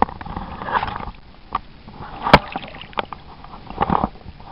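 Water splashing and sloshing as a landed brown trout is handled in the water, with scattered knocks and one sharp click a little past halfway.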